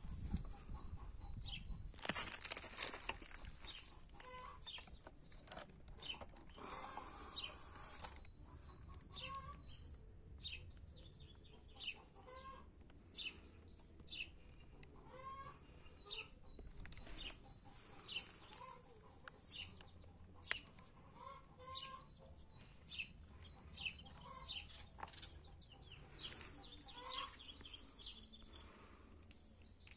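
Birds calling outdoors: short chirps repeating every second or two over a faint low rumble, with a brief louder noise about two seconds in.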